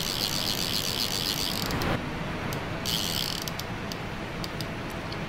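Fly reel's click-and-pawl drag ratcheting as the spool turns while a heavy trout is played: a fast continuous buzz that stops about two seconds in, a short burst again around three seconds, then slower single clicks. A brief scuff of handling comes just before the first buzz stops.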